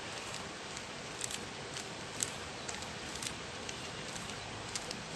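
A Rubik's cube being twisted by hand, its layers clicking as they turn: scattered sharp clicks at irregular spacing over a steady hiss.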